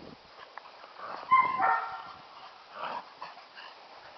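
Catahoula puppy at play giving a short, high-pitched yelp about a second and a half in, then a softer one around three seconds.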